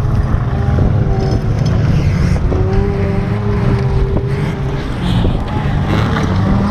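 Engines of old banger-racing cars running hard on a dirt track, several at once, making a steady drone with held engine tones that shift in pitch now and then.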